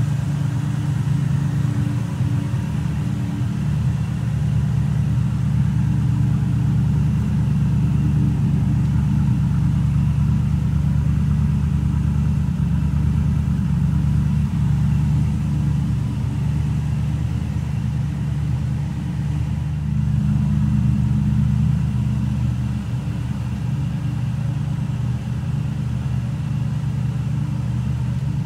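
1991 Morgan Plus 8's 3.9-litre Rover V8 idling steadily with a deep, even rumble.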